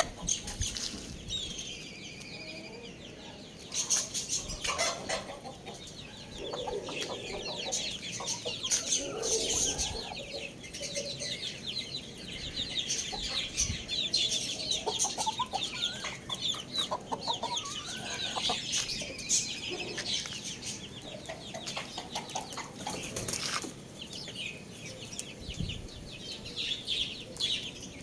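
Young chickens clucking and calling over a dense chatter of high chirps, with a few sharp rustling noises.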